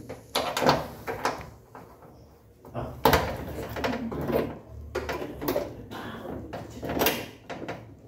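Irregular knocks, clunks and rustling from hands working at the back panel of a front-load washing machine and handling its plastic hoses. The sharpest knocks come about half a second, three seconds and seven seconds in.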